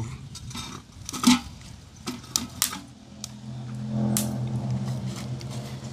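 A few sharp clicks and knocks, then a steady low hum from about four seconds in.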